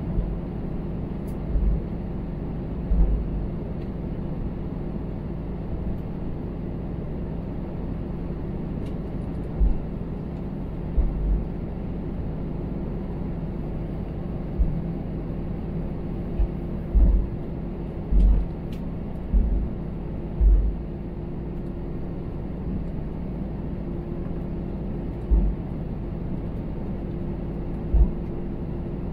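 Airbus A320 cabin noise while taxiing: a steady hum from the idling jet engines and the air system, with short low thumps every second or few seconds at irregular intervals.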